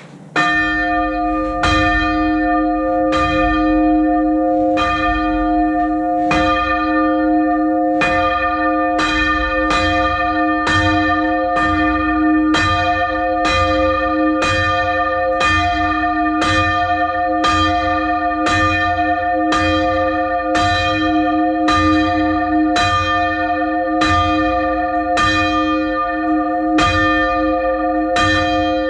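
A ring of six English church bells, tenor about 10 cwt in F, being rung full-circle by a band of ringers, the bells striking one after another in a steady, even sequence with their tones hanging over each other. The ringing starts suddenly just after the start.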